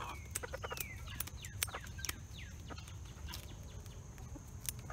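Chickens clucking and calling with short falling chirps, mixed with sharp clicks of kitchen scissors snipping through a hen's flight feathers.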